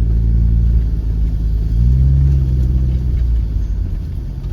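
Car engine running with low road rumble, heard from inside the moving car; the engine revs up briefly about two seconds in, then eases off.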